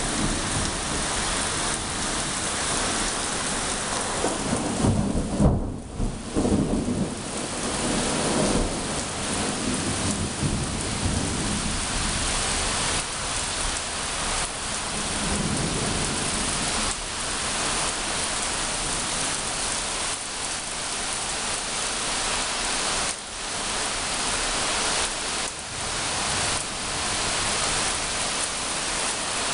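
Heavy rain falling steadily on pavement during a thunderstorm. A rumble of thunder swells about four to seven seconds in, and a fainter rumble follows around the middle.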